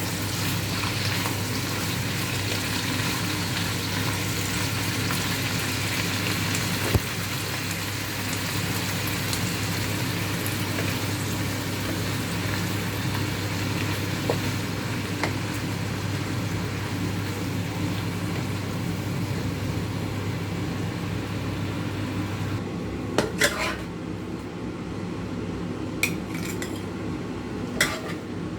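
Stir-fry sizzling in a pan over a steady low hum, with the odd clink of a utensil. Near the end the sizzle drops away and a few sharp clicks of a utensil against the pan follow.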